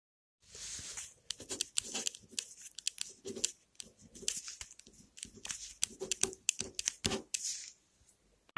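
Pen writing on a sheet of paper: an irregular run of short scratchy strokes and small taps that stops shortly before the end.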